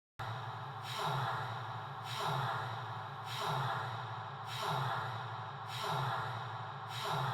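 Slow, rhythmic breathing: six even breaths, one about every second and a bit, each swelling and fading over a steady hiss.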